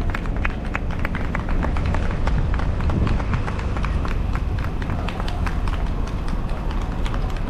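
Quick footsteps on hard ground: a run of sharp clicks, several a second and not quite even, over a steady low rumble.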